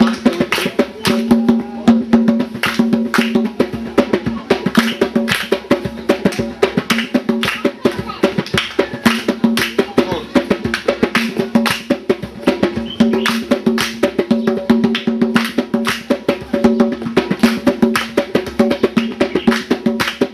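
Percussion music: fast drum and wood-block strikes in a steady rhythm over a sustained pitched melodic line.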